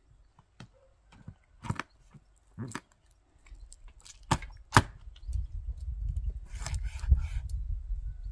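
Kitchen knife cutting through raw chicken leg quarters on a wooden cutting board, with four sharp knocks of the blade hitting the board. A low rumble sets in about halfway through and runs on to the end.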